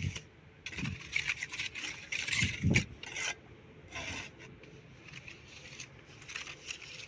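Irregular rough scraping and rubbing strokes from masonry hand work, with a couple of dull knocks.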